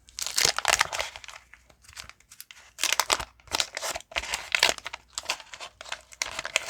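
Waxed-paper wrapper of a 1989 Fleer baseball card pack being torn open and crinkled, in three bursts of crackling.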